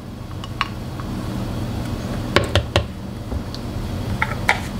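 A tablespoon clicking against a bowl and container while garlic is measured out, a few sharp taps: two close together about halfway through and several more near the end.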